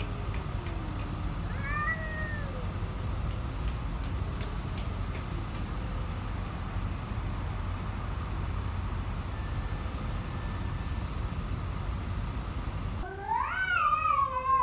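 Two cats in an angry standoff, yowling at each other: a low drawn-out yowl and a short wavering cry about two seconds in, over a steady low rumble. Near the end a much louder, long wavering yowl that slides down in pitch.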